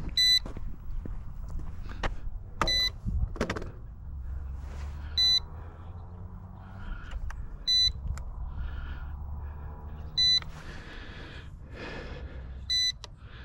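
RC transmitter low-battery warning: a short, high electronic beep repeating about every two and a half seconds, over a low rumble.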